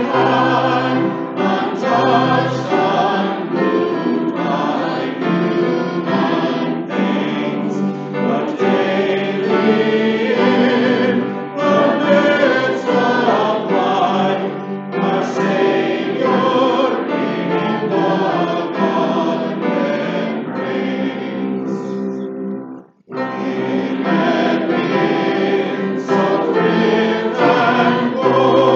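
A church congregation singing a hymn together, with a brief break about 23 seconds in before the singing resumes.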